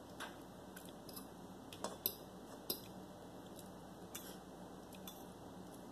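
A few faint, sharp clicks and taps of a metal fork against a ceramic plate as noodles are picked up, about half a dozen spread irregularly over several seconds.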